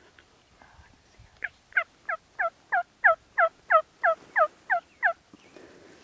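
Wild turkey yelping: a run of about twelve evenly spaced yelps, about three a second, each sliding down in pitch, starting a little over a second in and stopping about a second before the end.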